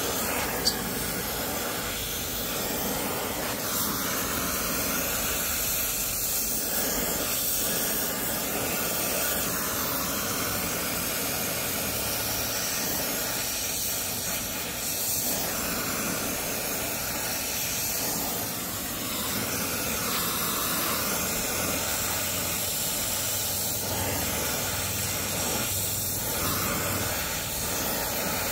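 Handheld gas torch flame hissing steadily while it heats a copper pipe joint for soldering, with one brief click about a second in.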